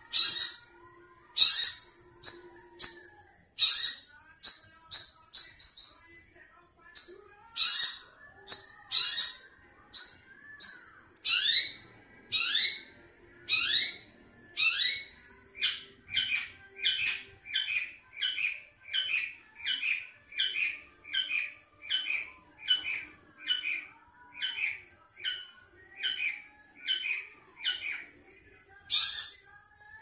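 Caged long-tailed shrike (cendet) giving a long, fast series of short, shrill calls, about one and a half a second, more even in the second half. The keeper takes it for a male calling to mate.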